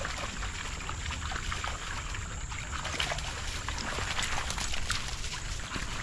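Dogs' paws splashing as they wade through a shallow creek, in irregular short splashes that get busier about halfway through, over a low steady rumble.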